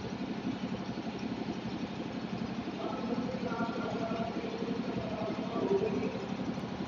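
A steady low hum, with faint voices in the background around the middle.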